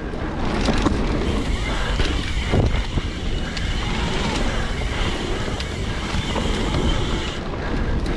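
Mountain bike descending a dirt singletrack at speed: tyres rolling over the dirt with frequent small rattles and knocks from the bike, under wind rushing over the camera microphone.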